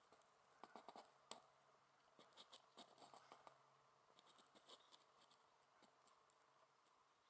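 Near silence with faint, irregular ticks and scratches, thickest in the first few seconds, over a faint steady hum; no engine is heard.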